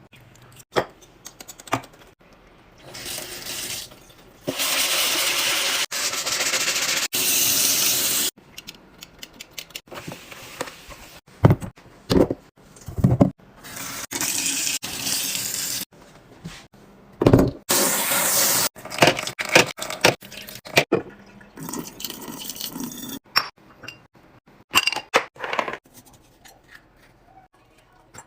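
Fridge restocking: liquid poured into containers in a few long stretches, between many short clicks and knocks of containers and lids being handled and set down.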